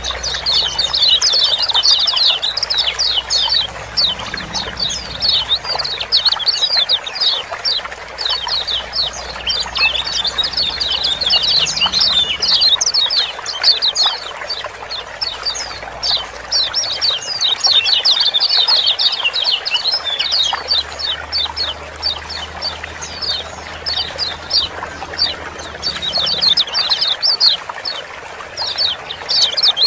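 Kecial kuning white-eyes giving busy 'ciak-ciak' chirp calls, quick sharp notes packed into dense bursts that come and go. A steady sound of running water lies underneath.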